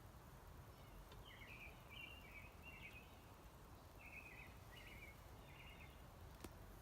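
Faint, quick chirping notes from a small bird in two short bursts over quiet woodland background hiss, with a single sharp click near the end.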